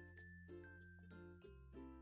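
Soft background music: short plucked notes, several a second, over a held bass note that changes pitch about a second and a half in.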